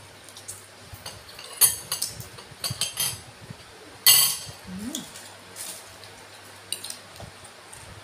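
Close-up eating sounds: crunching and chewing on seafood, a series of sharp crackles, the loudest about four seconds in.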